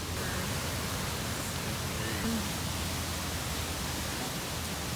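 Steady rushing of Spearfish Falls, a waterfall's falling water heard from near its top.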